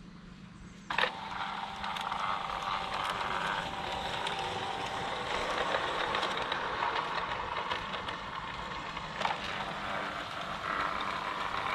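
G-scale model train running along garden-railway track, its wheels giving a steady rattle with many small clicks over the rails. The sound starts abruptly about a second in.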